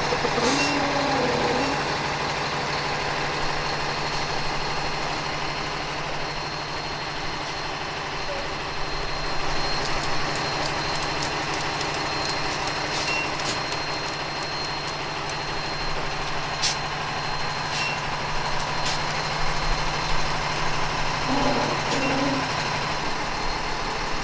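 Semi-truck diesel engine running steadily at low revs, a constant low hum that stops shortly before the end. Scattered sharp clicks sound over it in the middle and latter part.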